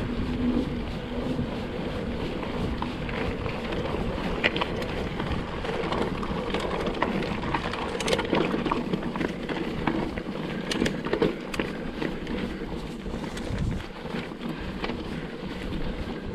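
Mountain bike descending a rough trail, heard through a GoPro: tyres running over stones and roots, with frequent short knocks and rattles from the bike and wind on the microphone.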